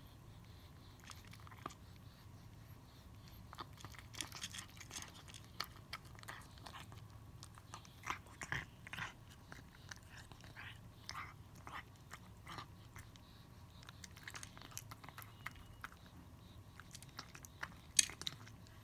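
Domestic cat eating from a bowl: irregular, faint crunching and chewing of food pieces, with a louder crunch near the end.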